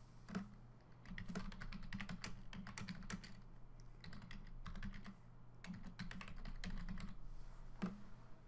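Computer keyboard keys clicking as text is typed, in quick runs of keystrokes with short pauses between them.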